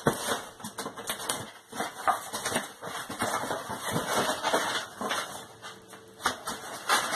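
Irregular clicking, tapping and rustling of disposal parts and their packaging being handled.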